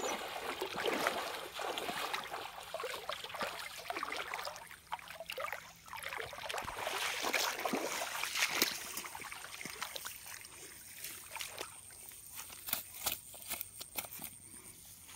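Splashing and sloshing of feet wading through shallow marsh water, then rustling in grass with scattered light clicks and ticks.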